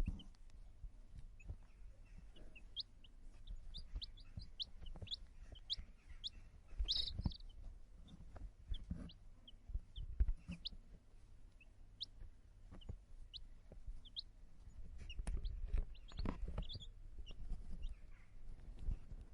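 Young chickens (chicks) peeping: many short, high chirps scattered irregularly, with low thumps and knocks underneath, loudest about a third of the way in and again near three-quarters through.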